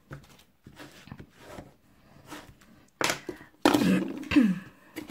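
Hands handling card stock on a cutting mat, with soft paper rustles. About three seconds in come louder knocks and scraping as a plastic craft-glue bottle is picked up and moved across the mat.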